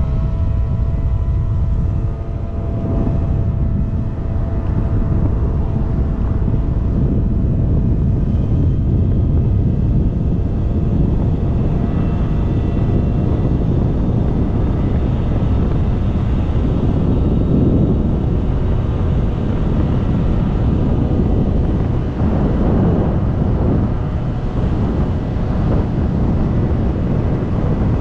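Kymco Agility 50 cc scooter engine running at a steady cruising pitch while riding, with wind buffeting the microphone and road rumble underneath.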